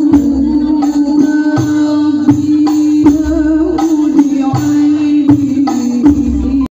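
Hadrah music: rebana frame drums beat a steady rhythm with deep bass strokes under a long held melody note. It cuts off suddenly near the end.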